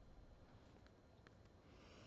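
Near silence, with a faint low rumble and two or three faint ticks about a second in.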